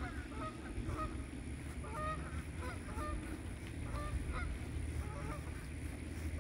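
A group of Muscovy ducklings peeping: many short, high chirps, several a second, overlapping from different birds, over a steady low background rumble.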